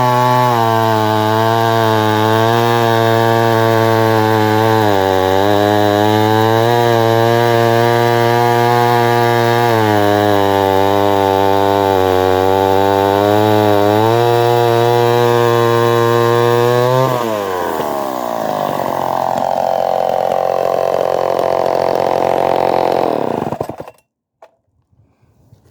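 Vintage Homelite Super 1050 Auto two-stroke chainsaw running at a steady speed with brief dips. About 17 s in its pitch drops and the sound roughens, then it cuts off abruptly about 24 s in.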